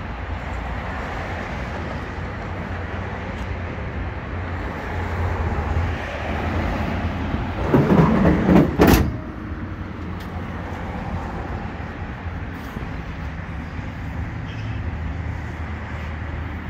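The steel hood of a 1970 Dodge Dart Swinger being slammed shut: a second of rustling handling noise, then one sharp bang about nine seconds in. Steady low rumble of street traffic and wind otherwise.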